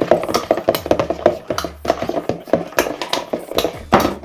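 Spoons stirring a sticky mix of glue and shaving foam in a bowl, with a quick, irregular run of clicks and scrapes against the bowl.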